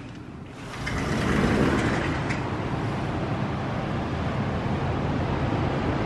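A sliding glass balcony door is opened, and about a second in a steady, low outdoor rumble of traffic and wind floods in and holds.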